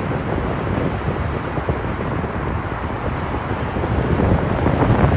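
Wind buffeting the microphone over the steady wash of ocean surf breaking on the shore.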